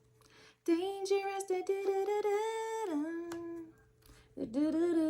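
A woman humming two long held notes, the first stepping down at its end and the second sliding gently down.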